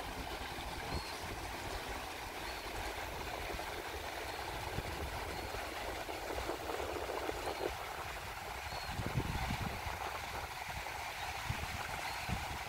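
Small waves lapping and washing over the sandy shallows in a steady wash, with wind rumbling now and then on the microphone.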